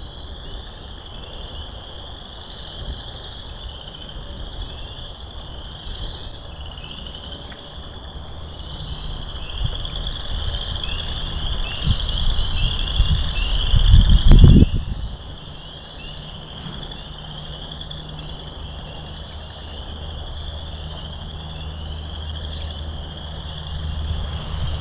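A dense chorus of small frogs, countless short, high, rising calls overlapping without a break. A low rumble of wind on the microphone builds in the middle, then cuts off sharply.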